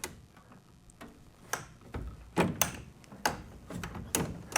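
A scattered series of short, light clicks and knocks, about eight of them, from small hardware parts being handled and fitted: a 3D-printed replacement part and its pin.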